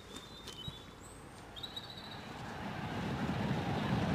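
Quiet outdoor air with a few light ticks and short high chirps. From about halfway through, a low rumbling noise swells steadily: the noise of a horse race fading in.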